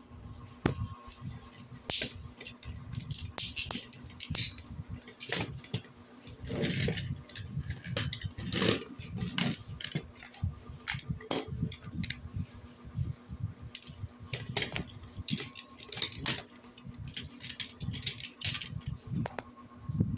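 Hard plastic Tobot transforming robot toys and toy cars being handled: irregular clicks, knocks and clattering of plastic parts, busier in a few stretches.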